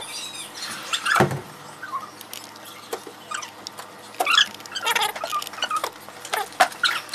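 Footsteps splashing through shallow floodwater on wet concrete, a series of short splashes and high squeaks, several coming close together about four to five seconds in, over a light rain patter.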